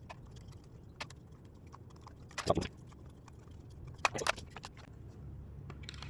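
Scattered plastic clicks and knocks from a foam-dart blaster and its magazine being handled between magazines, the loudest about two and a half seconds in and again about four seconds in.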